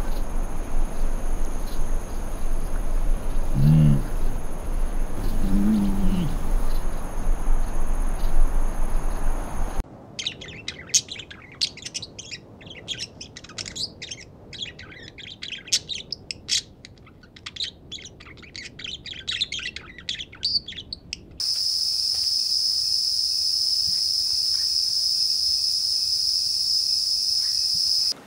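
Layered nature ambience in three parts: first a low rumbling bed with steady high insect trilling and two short, low animal calls; then, about ten seconds in, dense rapid bird chirping and twittering; then, about twenty-one seconds in, a steady high-pitched insect drone.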